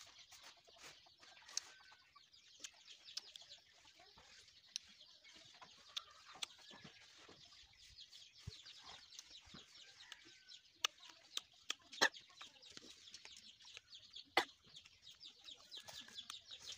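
Crisp crunches of small Indian jujube (ber) fruits being bitten and chewed: a string of sharp, irregular cracks, loudest about twelve and fourteen seconds in. Hens cluck faintly in the background over a steady high outdoor hiss.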